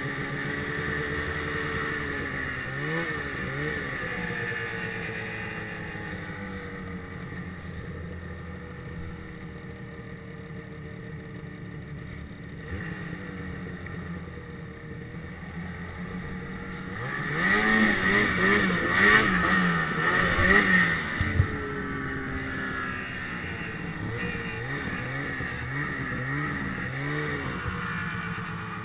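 Two-stroke snowmobile engine running under load, its pitch rising and falling with the throttle, loudest during a hard rev about two-thirds of the way through.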